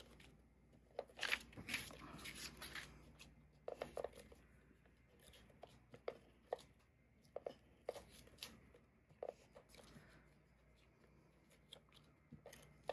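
Stampin' Seal adhesive tape runner drawn in short strokes across a vellum panel: faint rasping scratches and clicks, with a cluster of louder strokes about a second in, then scattered single clicks and light paper crinkling.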